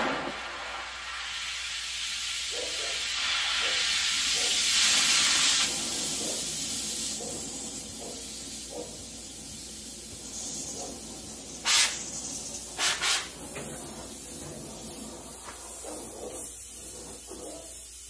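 Oxy-acetylene cutting torch flame hissing steadily as it is adjusted to a blue cutting flame; the hiss swells for a few seconds near the start, then settles. About two-thirds through come three short, sharp pops, the loudest sounds.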